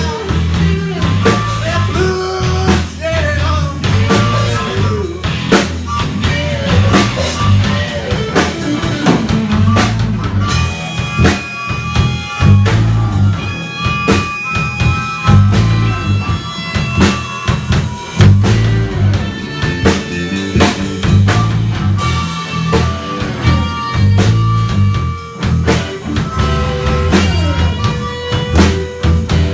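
A live band jamming on a rock tune: a drum kit keeps a steady beat with rimshots over bass and guitar.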